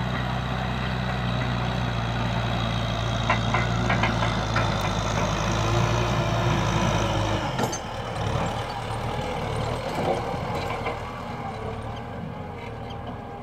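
Farm tractor's diesel engine running under load as it pulls a disc plough through dry soil, louder as it passes close, with a few clanks about three to five seconds in. About seven and a half seconds in, the engine's low note drops away and the sound gets quieter as the tractor moves off.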